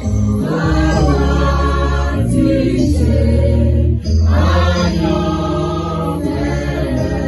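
Church choir singing a gospel hymn in several voices over steady instrumental backing, the phrases pausing briefly about two and four seconds in.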